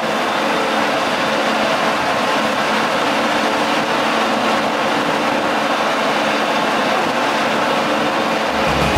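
Self-propelled forage harvester working through standing maize: a steady, even machine noise of the engine, chopping cylinder and crop blower sending chopped maize out of the spout. Music starts just before the end.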